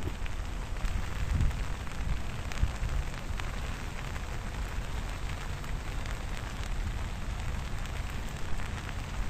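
A stream swollen into a flood by a heavy downpour, its fast water rushing in a steady noisy wash with a deep rumble underneath.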